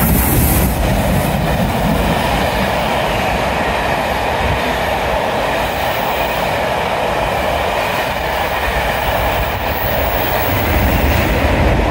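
Steam special passing through a station at speed: LNER B1 4-6-0 No. 61306 Mayflower goes by, then its train of passenger coaches, with a loud steady noise of wheels running on the rails.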